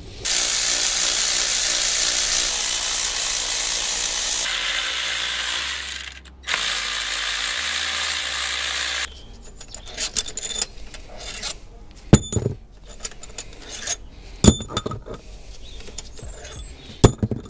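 A power tool runs in two long stretches, about six seconds and then nearly three, spinning out the cylinder head bolts of a 1.6 Z16XEP petrol engine. Then come scattered sharp metallic clinks and knocks.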